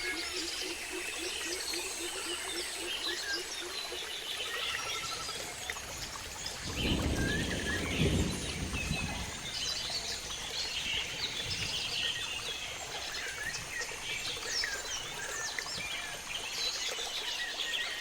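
River-rainforest ambience: many birds chirping and calling at once, over a faint steady high insect-like tone. A low call pulsing about five times a second fades out about four seconds in. A louder low rush of water comes between about seven and nine seconds in.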